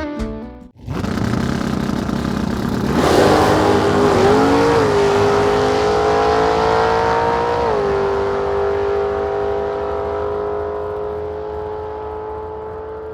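A car engine running at high revs. It swells in about three seconds in, its pitch dips about eight seconds in, then it holds steady and slowly fades.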